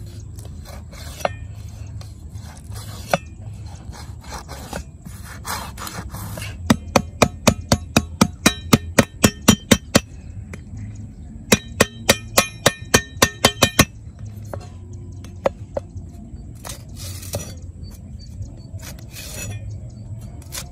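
A cleaver scrapes along a fish's skin on a wooden chopping block. Midway come two quick runs of sharp chops of the cleaver on the block, about four a second, each run lasting a few seconds. Softer cutting and scraping follow the chops.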